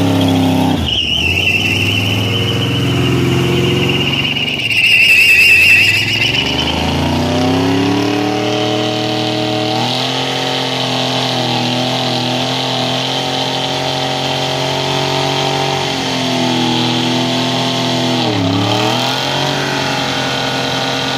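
Chevrolet C10 pickup's engine revved hard in a burnout, the rear tyre spinning with a high wavering squeal over the first few seconds. The engine pitch drops sharply about a second in and again about five seconds in, then climbs back and holds steady at high revs, with another brief dip near the end.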